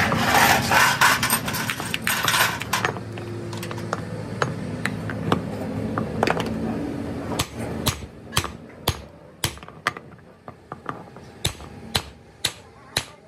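Metal clatter as drive shaft parts are handled, then a hammer striking a truck drive shaft's universal joint. The blows are sharp and come steadily, about two a second, through the second half.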